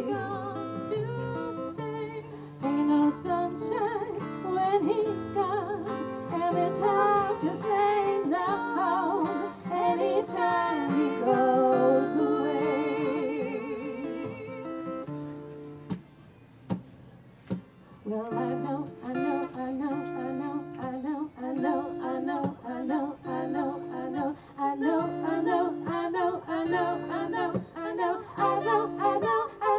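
Acoustic guitar accompanying women's voices singing in vocal harmony. The music drops away briefly about sixteen seconds in, then the strummed guitar and singing come back.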